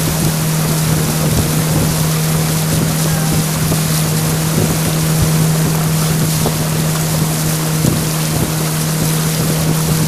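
Motorboat engine running at a steady pace with an even low hum, under a constant hiss of wind and rushing water.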